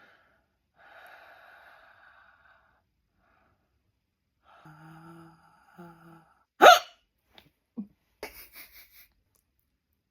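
A girl hiccuping: one loud, sharp hic about two-thirds of the way through, with fainter breathy and voiced sounds before it and a few short, quieter sounds after it.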